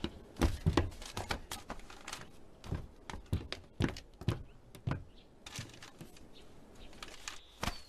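A string of irregular knocks and clicks, a few a second, several with a dull thud underneath and no steady rhythm.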